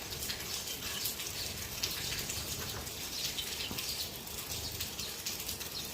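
House sparrows chirping, many short repeated chirps over a steady hiss.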